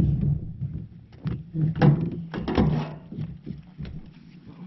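Several knocks and thumps on the boat as a freshly caught channel catfish is handled aboard, over a steady low hum.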